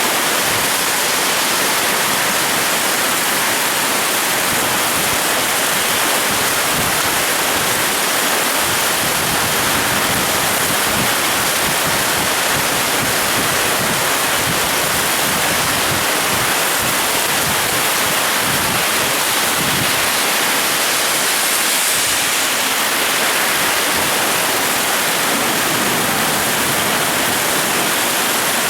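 Heavy rain pouring down steadily in a summer storm, an even unbroken rush of noise.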